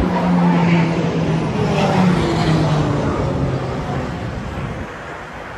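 A passing engine: a low steady hum that slides slightly down in pitch and fades over the last couple of seconds, over the steady rush of road traffic.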